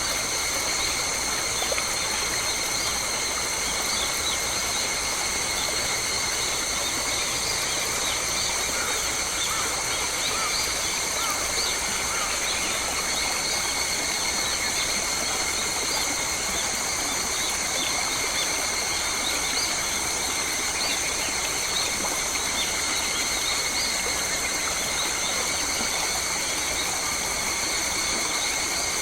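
Forest ambience: a steady, high-pitched drone of several even tones with many short bird chirps over it.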